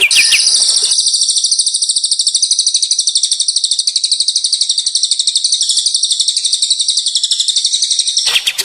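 A songbird singing one long, very rapid, high-pitched trill that starts just after the beginning and breaks off shortly before the end.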